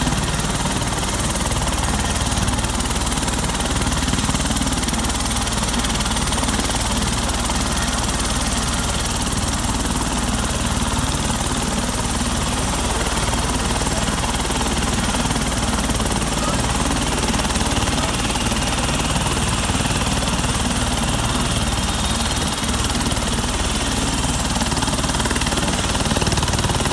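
Helicopter in flight: a steady, unbroken rotor and engine noise with a deep rumble at the bottom.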